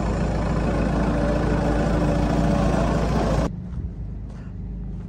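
An engine running steadily, loud and noisy with a steady hum in it; it cuts off suddenly about three and a half seconds in, leaving a quieter low hum.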